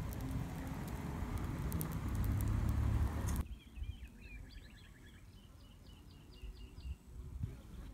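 Sausages sizzling and crackling on a wire grill over campfire coals, with a loud low rumble, cutting off abruptly about three and a half seconds in. Then a small bird sings a quick run of repeated chirps.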